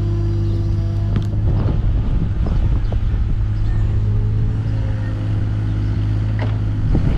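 Takeuchi TB216 mini excavator's diesel engine running steadily while digging, its note shifting under hydraulic load, with a few sharp knocks from the machine working.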